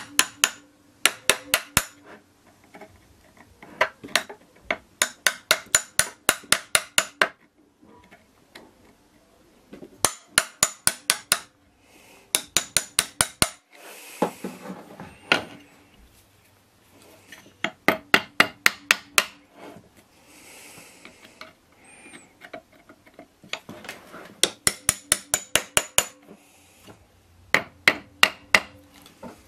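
Runs of sharp metal taps and clicks, several a second in short bursts with pauses between, from a screwdriver working the tab washers on the ignition coil screws of a Motobecane Mobylette moped engine's stator plate.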